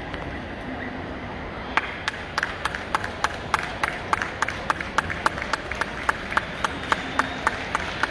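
Hand clapping in a steady rhythm, about four claps a second, starting about two seconds in, over the murmur of a crowd in a large hall.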